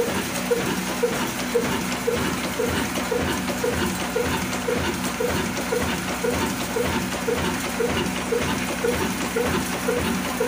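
A Diamond 22 HP 'kala' single-cylinder diesel engine running slow, at about 275 rpm: an even beat about twice a second over a steady hum.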